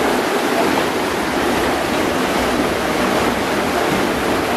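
Water rushing and churning steadily as a windmill-driven Archimedes screw turns fast in its brick channel, lifting water out of the polder.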